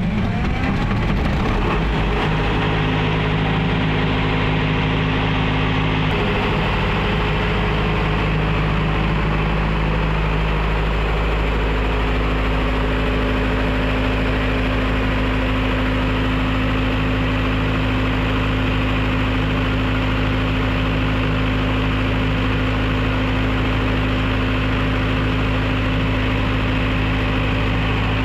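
Diesel engine of a 62.5 kVA silent-canopy generator set running just after starting, its pitch wavering for the first couple of seconds and then holding steady.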